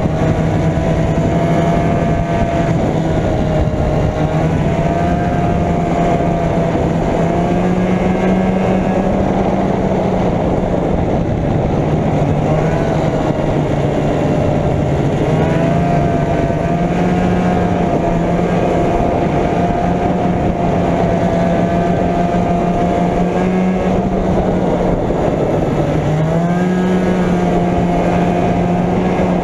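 Arctic Cat Jag 440 snowmobile's two-stroke engine running steadily under way, its pitch rising and falling a little several times with the throttle.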